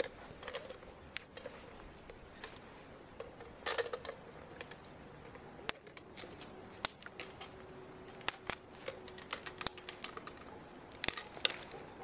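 Thin dry spruce twigs being snapped by hand for kindling: a string of sharp, irregular cracks, several at a time, with the loudest snaps about halfway through and near the end.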